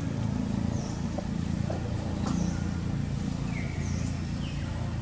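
Outdoor ambience: birds calling with short falling whistles every second or so, over a steady low rumble.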